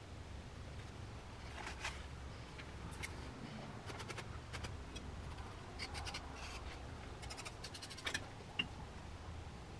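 Tool and fingers working soft refractory clay: faint, irregular scratches and clicks, some in quick little runs, over a low steady hum.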